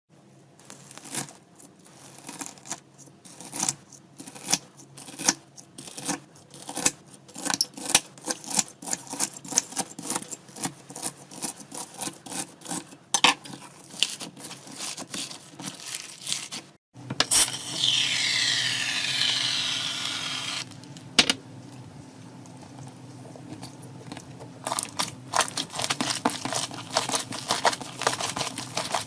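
Slime being squeezed and poked by hand, giving rapid, irregular sticky clicks and pops. After a short break about 17 seconds in, a steadier crackling hiss runs for about three seconds, then the clicking picks up again near the end.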